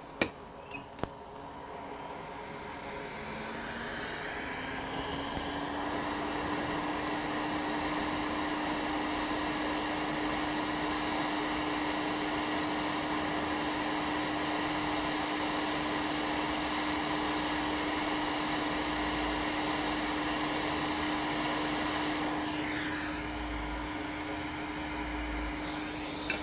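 Hot air rework station blowing on a laptop motherboard while a SOIC-8 BIOS chip is soldered back in place. The blower starts a couple of seconds in with a rising hum, runs as a steady rush of air, and quietens near the end. A few light clicks of tweezers come just before it starts.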